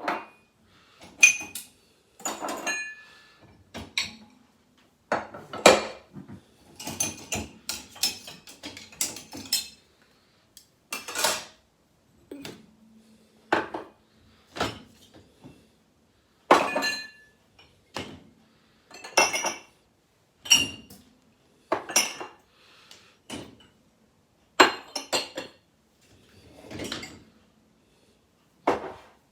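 Dishes, glasses and cutlery being lifted out of a dishwasher and set down: an irregular run of clinks and clatters, one or two a second, some with a short ring of china or glass.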